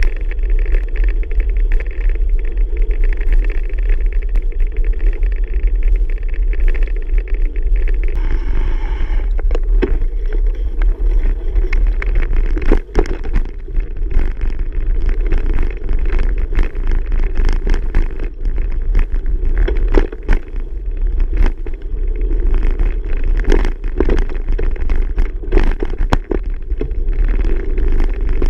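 Bicycle riding noise: a steady low rumble, with frequent sharp clicks and knocks from about a third of the way in.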